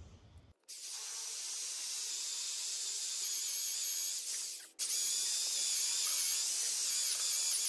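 Corded electric drill boring through an old white mahogany fence post: a steady high whine whose pitch wavers as the bit loads up in the wood. It starts about half a second in, stops for a moment just under five seconds in, then runs again.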